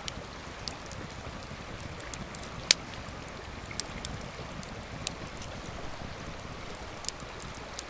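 Wood campfire crackling: scattered sharp pops, one much louder about two and a half seconds in, over a steady low rushing noise.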